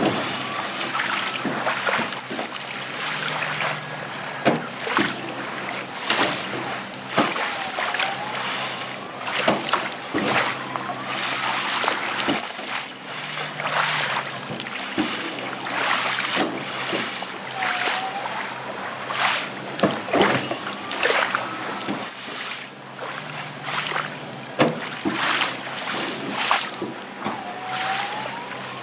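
Small waves washing and splashing at the shoreline, with wind noise, over a low steady hum from the robotic boat's walking-leg drive that swells for about a second roughly every ten seconds; a short pitched whine sliding in pitch recurs about as often.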